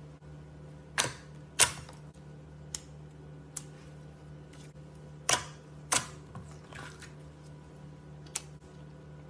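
Slime being pressed and poked, giving a series of sharp pops and clicks as air pockets in it burst, about eight at irregular gaps, the loudest about a second and a half in.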